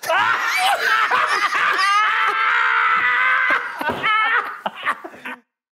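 Men laughing loudly and hard, with a long high-pitched held laugh in the middle, breaking into shorter bursts and cutting off suddenly about five seconds in.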